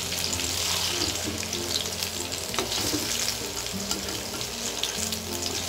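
Hot oil sizzling and crackling in a wok with fried garlic, shallots and candlenuts in it, as a wire spider strainer lifts them out.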